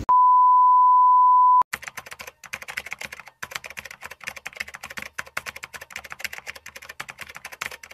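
A steady high beep held for about a second and a half, then a rapid run of computer-keyboard typing clicks with short pauses: a typing sound effect laid under text appearing letter by letter.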